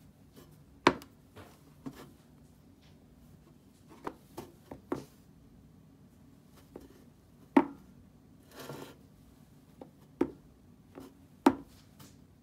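A smartphone in a case being handled on a wooden tabletop: a series of sharp taps and knocks, the loudest about a second in and near the end, with a short rustle about two-thirds of the way through.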